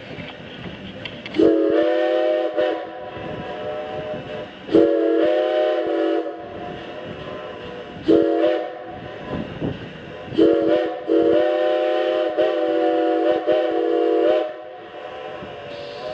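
Steam locomotive No. 90's whistle blowing the grade-crossing signal: long, long, short, long, each blast several steady tones sounding together. Between the blasts the train's running noise goes on underneath.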